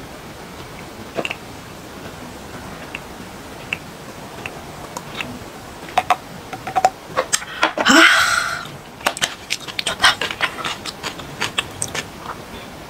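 Small swallowing and mouth clicks as makgeolli is drunk from a metal bowl, then a loud breathy 'ah' of satisfaction about eight seconds in. After it come light clicks of chopsticks and tongs against the dishes.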